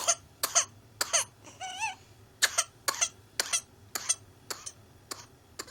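A whooping cough (pertussis) coughing fit: a long run of short, sharp coughs, about two a second, broken by a brief high, wavering voiced sound about two seconds in.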